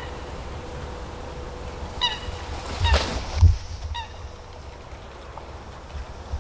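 A few short honking bird calls, about a second apart, over steady outdoor background noise, with low rumbles of wind on the microphone about three seconds in.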